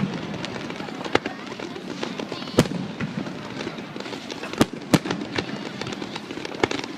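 Aerial fireworks bursting: about five sharp bangs at uneven intervals, with smaller crackles between them.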